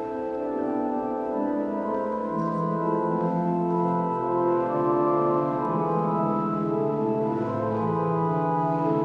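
Church organ playing slow, sustained chords, with a bass line coming in about a second and a half in.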